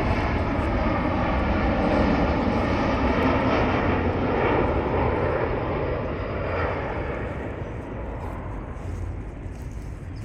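Airplane passing overhead: a loud jet roar with a slowly shifting whine that peaks in the first few seconds, then fades away.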